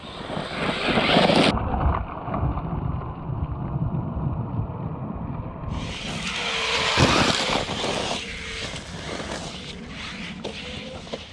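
6S brushless-powered Traxxas Maxx RC monster truck driving over bark mulch and gravel, with wind noise on the microphone. After about a second and a half the sound turns duller for some four seconds, then brightens again.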